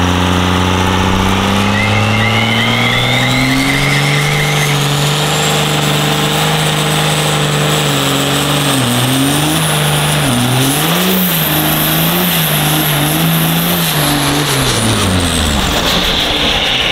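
Twin-turbo Cummins diesel engine in a Mustang revved hard for a burnout, with its turbos spooling up to a high rising whistle. The revs climb over the first few seconds, rise and fall several times in the middle, and drop away near the end.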